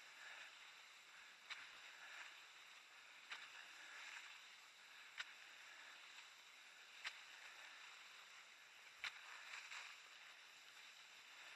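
Faint swish of cross-country skis gliding in hard, icy classic tracks, with a sharp click of a ski pole planting in the crust about every two seconds.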